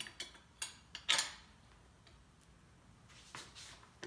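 Light metal clicks and clinks of steel washers being fitted onto the hinge bolts. Several small clicks come in the first second or so, the sharpest about a second in, then a couple more near the end.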